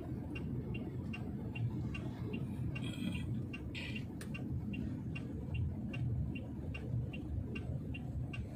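Wuling Almaz turn-signal indicator ticking inside the cabin, about two and a half even ticks a second, over the low rumble of the car driving.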